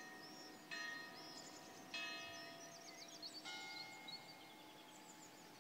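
Church bells tolling, three strikes about a second and a half apart, each ringing on as it fades, the third on a different bell. Birds chirp between the strikes.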